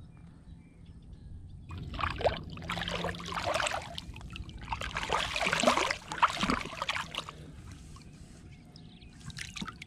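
Water splashing as a largemouth bass is lowered by hand into the water and released, the fish kicking free. Two spells of splashing, about two seconds in and again about five seconds in, with a short splash near the end.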